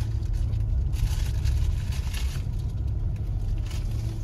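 Low, steady rumble of a car driving on a paved road, heard from inside the cabin. A louder hiss rises over it for about a second and a half, starting about a second in.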